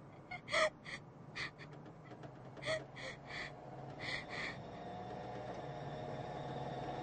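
A person crying in short, gasping sobs, about eight catches of breath in the first four and a half seconds. After that a low steady hum slowly swells.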